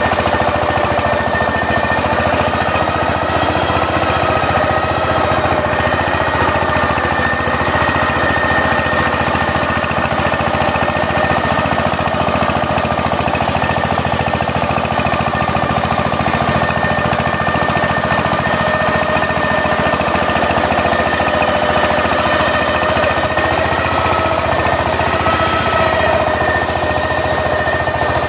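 Single-cylinder diesel engine of a two-wheel power tiller running steadily under load with a fast, even chugging knock, and a steady high whine from the machine on top.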